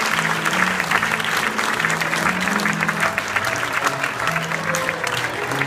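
Audience applauding, with instrumental music of low held notes playing underneath.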